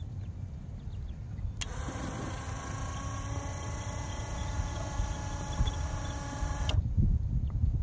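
A salvaged 1980s Ford truck worm-gear motor gives a steady whine as it slowly lowers a gravity-fed chicken coop door. It starts abruptly about a second and a half in and cuts off suddenly near the end, as the door reaches its closed limit switch. A low, uneven rumble runs underneath.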